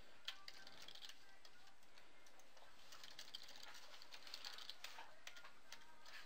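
Faint computer keyboard typing: irregular keystrokes in short runs.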